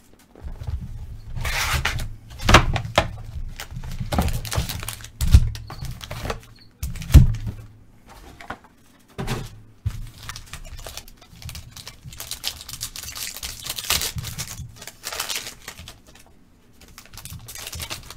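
Hands opening a 2020 Panini Mosaic Football hobby box and its card packs: wrappers tearing and crinkling in several stretches, with irregular cardboard thunks and knocks on a tabletop.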